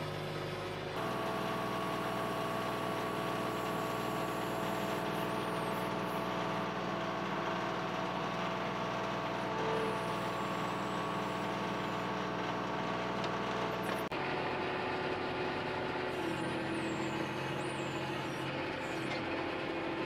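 TYM 2515 compact tractor's diesel engine running steadily while it powers the BL150 backhoe attachment as it digs and dumps soil. The sound shifts abruptly about a second in and again about 14 seconds in.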